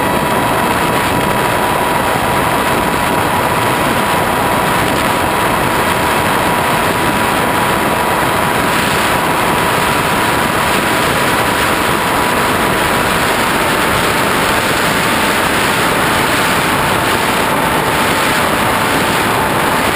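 Onboard sound of an FPV flying wing in flight: the motor and propeller whine at a steady pitch under heavy rushing wind noise over the airframe. The whine drops slightly in pitch about thirteen seconds in.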